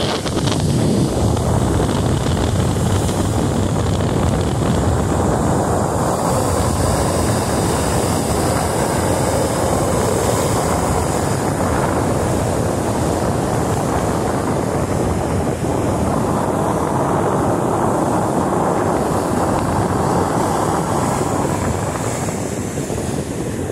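Rough-sea surf breaking and washing over a rocky shore, with strong wind buffeting the microphone; a dense, steady wash of wave and wind noise that eases slightly near the end.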